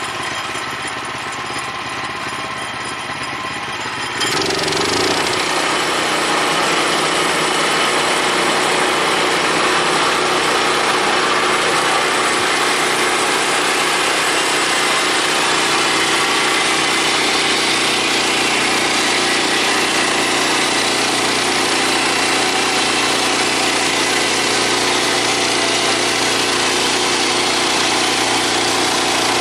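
Portable band sawmill running on its gas engine; about four seconds in it gets louder and then holds a steady, even noise as the blade saws through the old timber.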